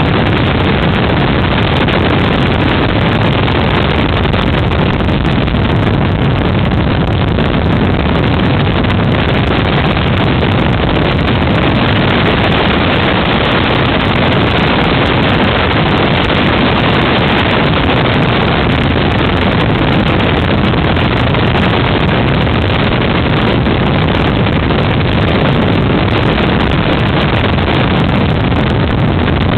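Helicopter cabin noise from inside the aircraft in flight: the engine and rotor running loud and steady without a break.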